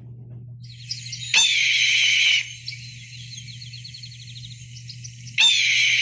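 Recorded red-tailed hawk calling twice, about four seconds apart: each long call starts sharply and falls slightly in pitch. A low steady hum runs underneath.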